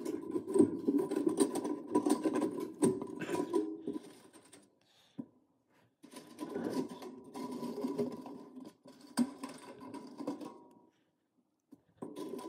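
Rapid rattling and scraping of a coiled wire kiln heating element being worked into the grooves of the kiln's firebrick wall by hand. It comes in two spells with a pause of about two seconds between them.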